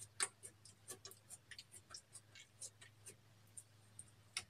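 Thin plastic stick tapping and scraping against the rim of a small plastic glitter jar, knocking glitter onto slime: irregular light clicks, several a second, with a louder tap just after the start and another near the end. A faint steady low hum runs underneath.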